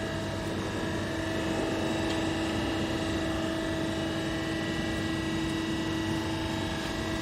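Steady electric hum of a busbar processing machine's hydraulic pump motor running idle, holding several unchanging tones at an even level.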